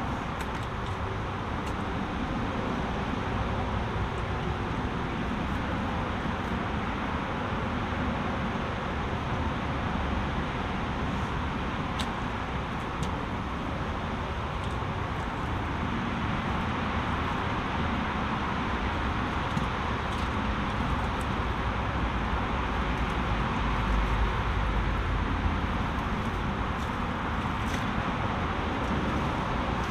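Steady rushing noise of a fast-flowing, storm-swollen brook mixed with road traffic, with a low rumble swelling about three-quarters of the way through.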